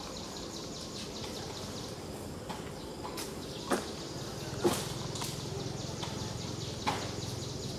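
Outdoor woodland ambience: a steady, high, finely pulsing insect drone, with three sharp snaps or knocks in the second half, the loudest just before the middle of that stretch.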